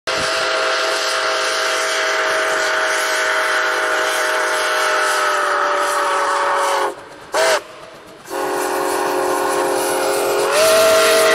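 Nickel Plate steam locomotive's chime whistle blowing with a hiss of steam: a long blast, a short toot about seven and a half seconds in, then another long blast that gets louder and slightly higher in pitch near the end.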